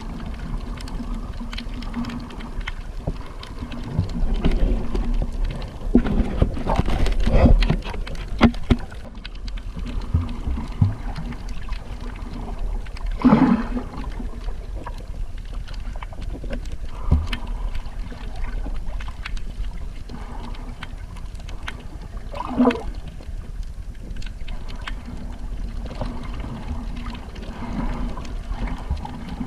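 Boat engine running steadily, with irregular surges of water and wind noise.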